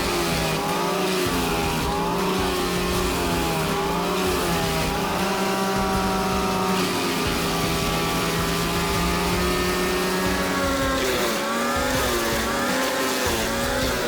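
Large wood chipper's engine running hard, its pitch sagging and recovering several times as it takes the load of wood being fed through.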